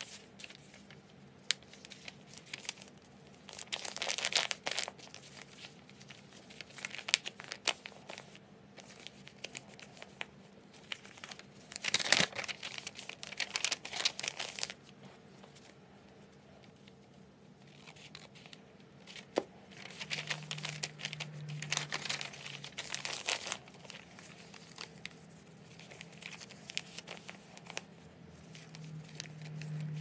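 A sheet of paper being handled and folded by hand: irregular rustling and crinkling as it is folded and creased, coming in several louder bursts with quieter handling between.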